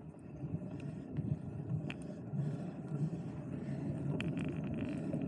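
Mountain bike rolling along a dirt trail: a low, steady noise of tyres and wind, with a few sharp clicks and rattles.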